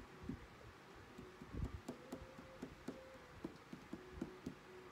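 Tarot cards being handled and laid out: a run of faint, irregular soft clicks and taps, about two or three a second.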